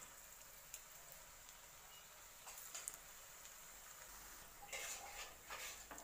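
Faint sizzling of hot oil as plantain unnakaya deep-fry in a pan, with a few brief louder spurts as more pieces are slid into the oil.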